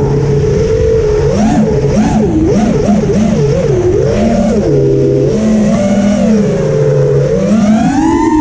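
FPV freestyle quadcopter's brushless motors and propellers whining, the pitch swinging up and down again and again with the throttle and climbing near the end, recorded from on board the quad.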